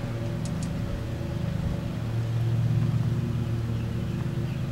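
Steady low mechanical hum, even in level, with two faint short clicks about half a second in.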